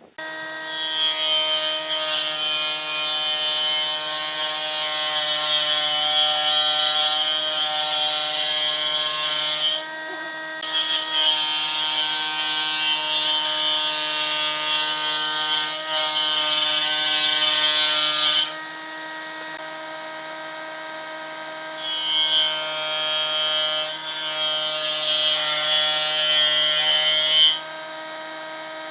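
An electric power tool working solid wood: its motor runs at a steady hum while a high rasping cutting noise comes and goes in three long passes, with a short break about ten seconds in and a longer one just after the middle.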